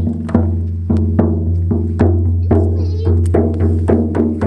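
Frame drums beaten in a steady beat, about two strokes a second, each stroke ringing, over a steady low drone. A brief high warble sounds about three seconds in.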